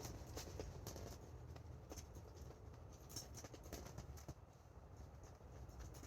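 Faint, irregular light clicks and ticks over a low steady rumble.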